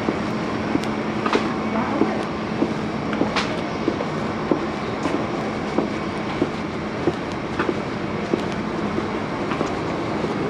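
Footsteps on a hard floor or pavement, about one and a half steps a second, over a steady low hum.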